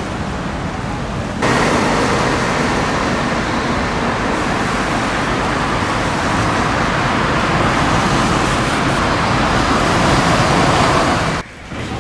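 Steady road traffic noise: a rushing hiss of passing cars, louder from about a second and a half in and dropping off shortly before the end.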